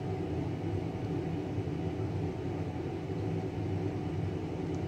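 Steady low mechanical hum of room background noise, even throughout with no distinct events.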